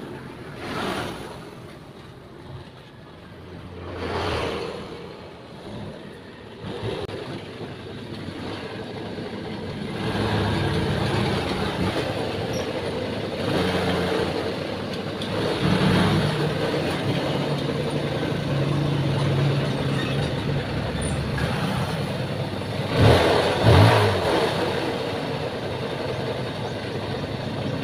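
Vehicles passing on the road twice in the first few seconds, then about ten seconds in a 125cc motorcycle engine comes in and runs steadily at idle, with two short louder rises near the end. The engine has just been sorted by a new spark plug after a weak ignition supply made it stumble and die when revved.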